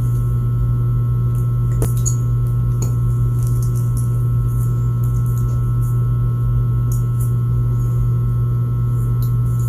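Steady low electrical hum, with a few faint small clicks of phone cable connectors and parts being handled.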